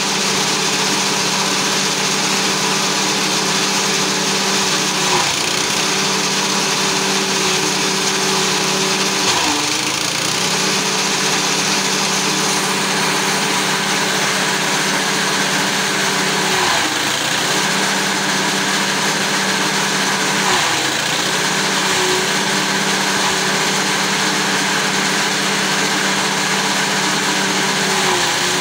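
Small petrol engine driving a chaff cutter, running steadily while corn stalks are shredded through the blades. The engine note sags briefly about five times as fresh bundles are fed in and load the cutter.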